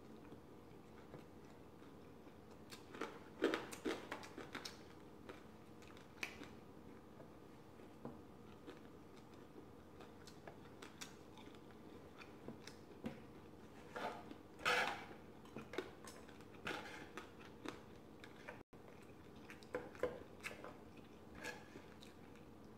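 A person chewing a mouthful of pork sisig close to the microphone, with wet mouth sounds and scattered short crunches and clicks, a few of them louder about 3 and 15 seconds in. A spoon now and then clicks against the platter.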